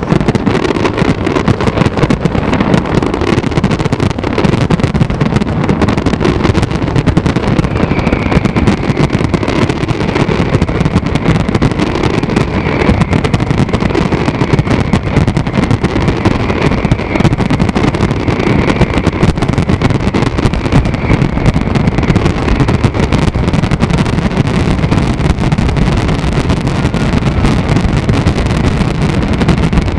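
A dense barrage of aerial fireworks shells bursting, so many at once that the bangs run together into one continuous loud rumble.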